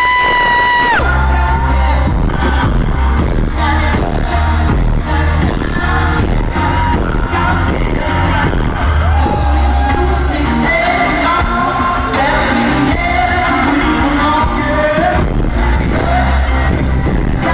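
Live electronic pop music with a heavy, steady bass beat and singing, loud and distorted as picked up by a handheld recorder in the crowd.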